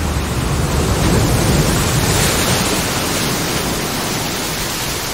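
Ocean surf: waves breaking over rocks, a steady, loud rush of water.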